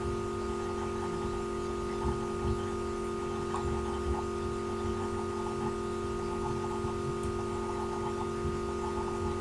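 Steady electrical hum over a background hiss, with faint music underneath.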